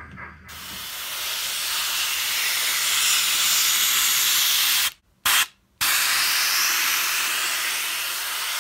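Airbrush spraying, a steady hiss of compressed air that starts sharply about half a second in and cuts out twice for a moment around the middle.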